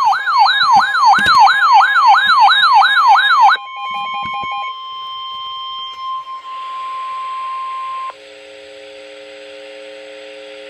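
Emergency alert tones: an electronic siren sweeping rapidly up and down, about three times a second, which cuts off after about three and a half seconds. A steady high alert tone follows. About eight seconds in it switches to a low, steady chord of droning tones.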